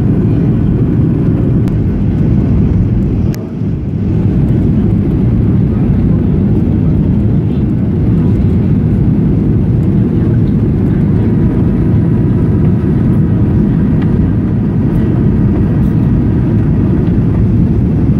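Steady roar of engine and airflow noise heard inside the cabin of a Boeing 737 on approach with its flaps extended. The noise briefly dips, with a click, about three seconds in.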